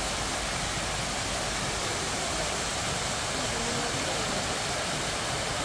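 Fountain water rushing and splashing, a steady, even hiss.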